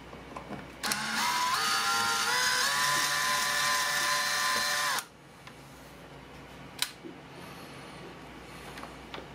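DeWalt cordless drill/driver turning a terminal screw on a blade fuse block. Its motor whine steps up in pitch over the first second or so, holds steady for about three seconds, then stops suddenly. A single click follows a couple of seconds later.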